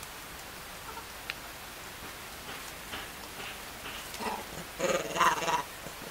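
A vervet monkey gives a call lasting about a second, beginning a little after four seconds in, over a steady faint hiss with a few small clicks.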